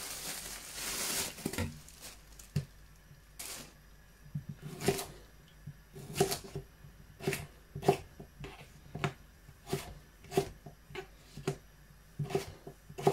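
Kitchen knife cutting red potatoes into chips on a plastic chopping board: a run of sharp knocks, about one or two a second, as the blade goes through each piece onto the board. A plastic bag rustles at the very start.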